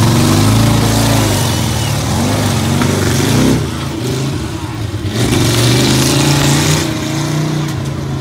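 Monster truck engine revving hard, its pitch rising and falling repeatedly as the truck drives over junk cars; it eases off about three and a half seconds in, then revs up again.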